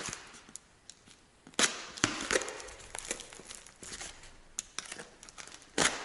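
Cardboard parcel wrapping being cut with a utility knife and pulled open, with rustling and several sharp cracks and snaps of tearing cardboard and tape; the loudest snap comes near the end.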